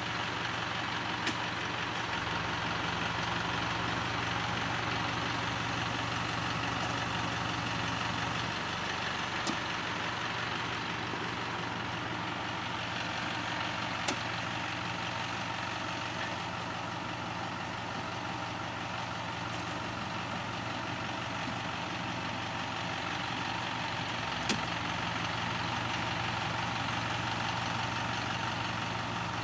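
Truck engine idling steadily, with a few short sharp knocks.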